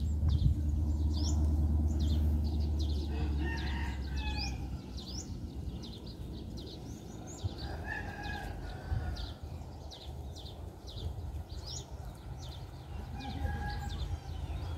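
Birds calling: many short rising chirps repeating throughout, with a few longer, lower calls. A low rumble fades out about four seconds in.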